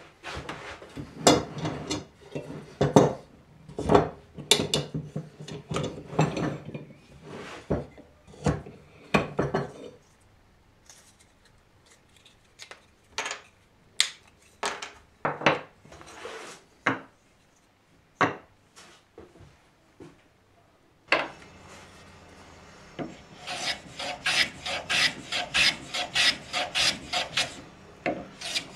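Spalted taraire being worked by hand with an abrasive tool, giving rubbing, rasping strokes on wood. The strokes are irregular at first and sparse for a while, then come quick and regular, about four a second, over a steady hum that starts about two-thirds of the way in.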